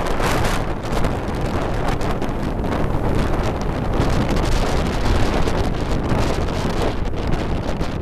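Wind buffeting the microphone of a rider on a moving motorbike taxi, over the motorbike's engine and the road noise of surrounding traffic.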